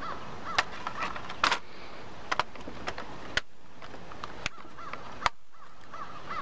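Plastic laptop back panel clicking as it is pressed down and snapped into place: a series of sharp, separate clicks a second or so apart.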